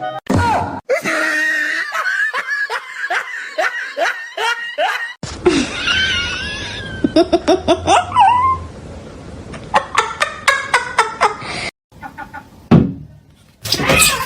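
People laughing hard in quick repeated bursts, broken by two abrupt cuts between different recordings.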